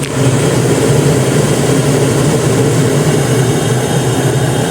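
Car engine idling with the ventilation fan blowing at full speed, heard from inside the cabin: a steady low hum under an even rush of air.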